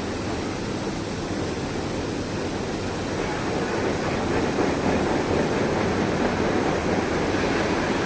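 Large washing machine running, a steady rush of water and turning drum that grows a little louder about three seconds in.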